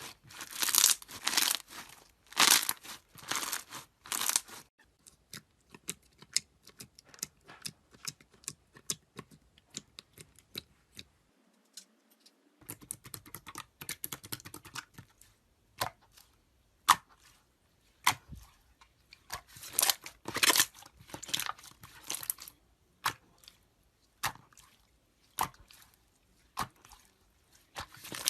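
Slime being squeezed, poked and stretched by hand, giving runs of crackling, popping clicks. The clicks are loudest in the first few seconds and again about twenty seconds in, with quieter scattered pops between.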